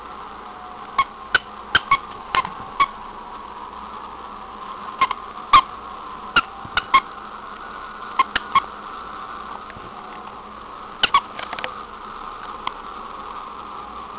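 A dog chewing a plush squeaky toy, setting off short, sharp squeaks in irregular bursts of two to four, with pauses of a second or more between them.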